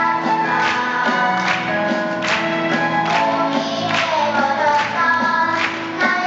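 Several voices singing a melodic song together over instrumental accompaniment with a steady beat.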